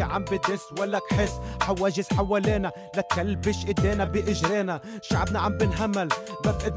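A man rapping over a hip-hop beat with heavy bass notes and a steady drum pattern.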